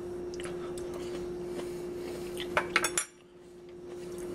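A metal fork clinking and scraping against a ceramic dinner plate: a few light clinks, then a quick run of them just before the sound cuts off suddenly about three seconds in. A steady hum runs underneath.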